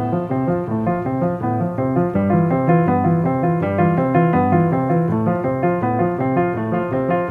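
Soundtrack music: a piano playing a quick, even pattern of repeated notes over low bass notes.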